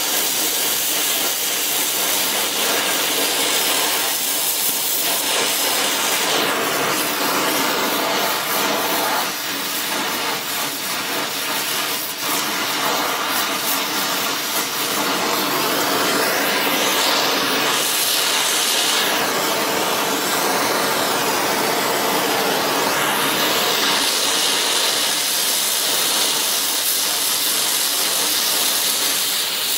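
Gas brazing torch flame hissing steadily against a cracked cast-iron exhaust manifold while it is being brazed with brass rod.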